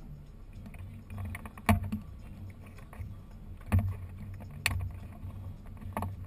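A boat's motor running steadily at slow cruising speed, with four sharp knocks or rattles spread through.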